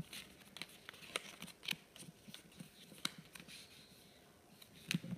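A small sheet of paper being folded and creased by hand on a glass tabletop: faint, irregular crinkles and taps, with a couple of louder taps near the end.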